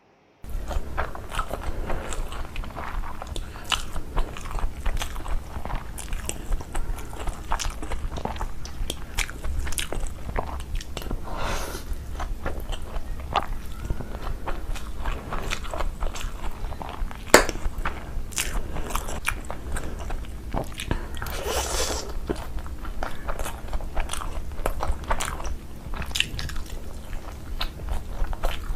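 Close-miked eating: chewing, crunching bites and small mouth clicks, over a steady low hum. One sharp click stands out about seventeen seconds in.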